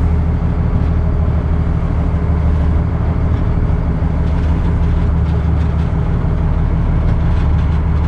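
Fishing boat's engine running steadily with a constant low drone.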